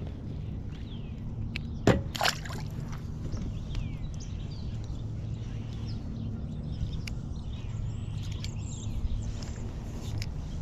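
A yellow perch being landed and handled on a plastic fishing kayak: a sharp knock about two seconds in, then scattered light clicks and handling noise over a low steady hum.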